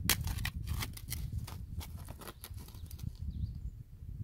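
Hands digging wild chives out of dry, stony soil: irregular crunching and scraping clicks of dirt and small stones, thinning out after about two and a half seconds, over a low rumble.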